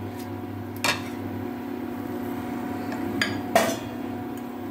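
Three sharp metallic clinks on a steel pressure cooker as leafy greens are handled in it, the loudest near the end, over a steady low hum.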